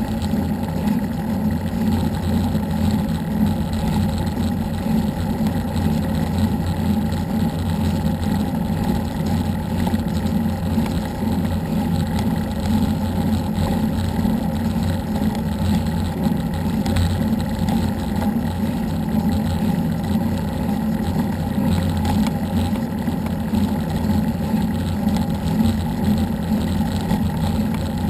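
Steady low rumble of a vehicle moving at speed, picked up by an action camera mounted on it, with no change in pitch or level.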